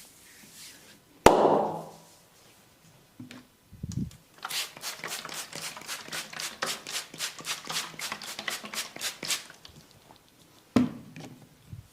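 Hand strikes of a percussive massage: a rapid run of sharp hand-chopping or tapping strokes on the body, about four a second for some five seconds. A single loud sharp smack comes before it, about a second in, and another sharp hit comes near the end.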